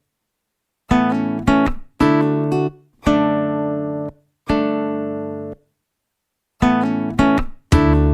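Background music of acoustic guitar chords. Each chord is struck and left to ring for about a second, with short silent gaps between the chords. The chords come more closely together near the end.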